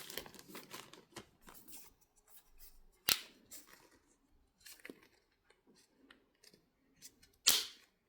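Hands handling packaging and plastic bottles: scattered rustling and small clicks, with two louder sharp snaps, one about three seconds in and one near the end.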